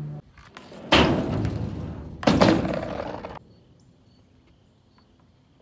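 Skateboard slapping down hard on a skate ramp twice, about a second and a half apart. Each hit trails off in a rumble for about a second, and the second cuts off suddenly.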